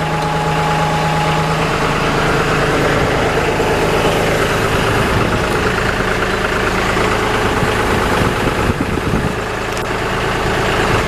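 John Deere tractor engine running steadily.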